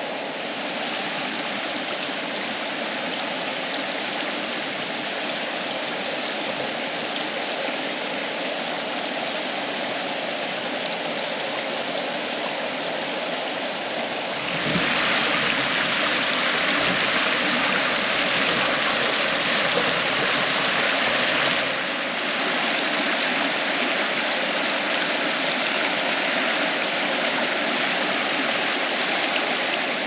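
Waterfall and stream water rushing steadily. About halfway through the rush turns louder and brighter for several seconds, then settles back slightly.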